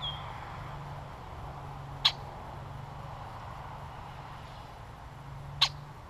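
Two loud, sharp single call notes from a blackbird at the feeder, about three and a half seconds apart, with a short falling chirp at the very start.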